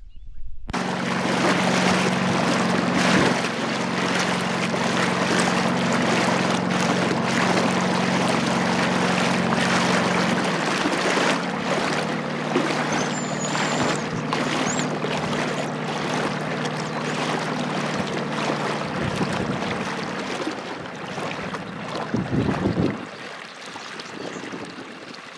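Wind rushing across the microphone over the steady low hum of a boat motor. The hum thins about ten seconds in and dies away near the end.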